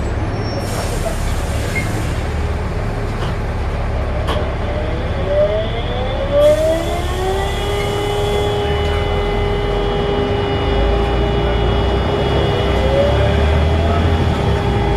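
Volvo B7RLE bus heard on board, engine running under way, with a short hiss of air release about a second in and another at about six and a half seconds. A whine rises in pitch as the bus pulls away, then holds steady.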